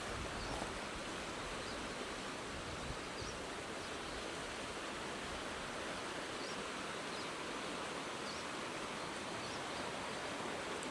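Steady outdoor ambience: an even hiss with a few faint, short high chirps scattered through.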